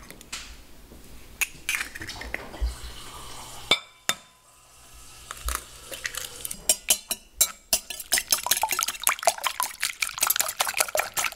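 Eggs cracked and dropped into a glass mixing bowl, with a sharp crack about four seconds in. In the second half a wire whisk beats the eggs, its wires clinking rapidly against the glass.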